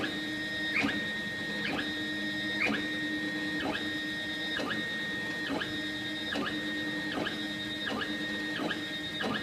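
Stepper motors of a Gravograph IS 600 engraver, retrofitted with 2M542 stepper drivers, moving the head through a 45-degree pocketing toolpath. A steady high whine dips and sweeps back at each change of direction, about once a second, a little faster near the end. It runs without losing steps.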